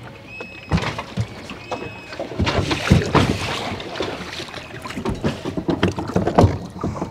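Irregular clunks and knocks of a small Tohatsu outboard motor being handled and fitted onto an inflatable dinghy's transom, with thumps of someone moving about in the dinghy.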